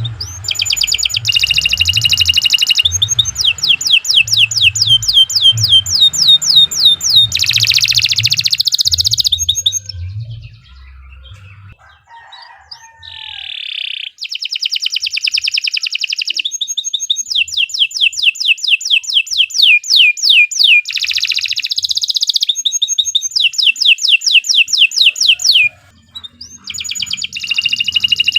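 Domestic canary singing a long, loud song. Very fast trills alternate with runs of repeated sweeping whistled notes, with a short lull about ten seconds in. A low rumble lies under the first part.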